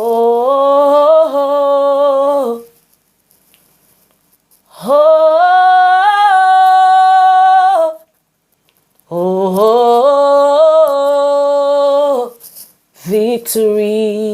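A woman's unaccompanied voice singing long, held wordless notes: three sustained phrases of two to three seconds each with pauses between, the second pitched higher, then a shorter wavering phrase begins near the end.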